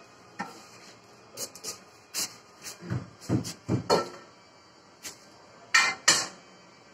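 Irregular knocks and taps as a stone countertop and backsplash slab is pressed and tapped into place, with duller thumps in the middle and two louder knocks close together near the end.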